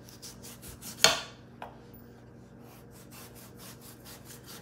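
Kitchen knife shaving the rind off a Castilla pumpkin wedge in quick, repeated rasping strokes, with a sharp click about a second in.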